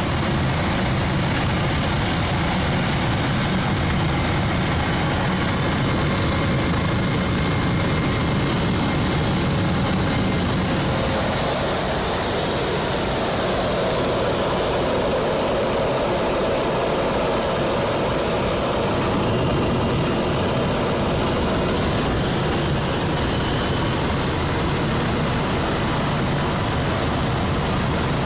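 A small aircraft's engine noise heard inside the cockpit in flight: a steady, loud drone with a high whine above it, shifting slightly about a third of the way through the descent.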